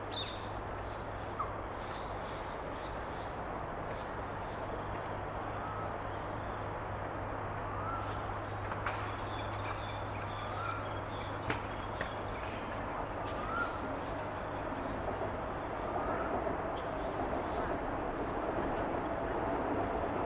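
A steady high-pitched insect drone with a low hum underneath. Over it, a soft, short, rising-and-falling bird note repeats every two to three seconds.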